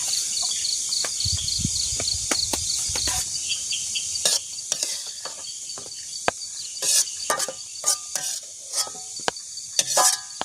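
Forest insects chirring steadily with a fast pulsing trill, over a string of sharp clicks and knocks from cookware and utensils being handled, coming thicker in the second half.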